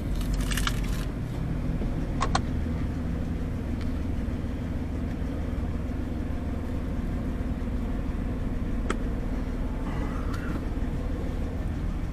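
Car engine and road noise heard from inside the cabin, a steady low hum as the car moves slowly forward. A few light clicks and a short jingle sound in the first two and a half seconds.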